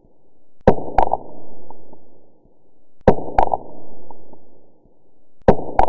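Repeating sound effect under the closing logo: a sharp double hit followed by a low swell that dies away, coming round about every two and a half seconds, three times.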